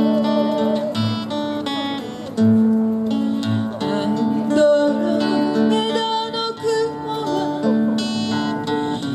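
Acoustic guitar accompaniment with an ocarina carrying the melody, which stops in the first two seconds; from about four seconds in a woman sings the melody over the guitar.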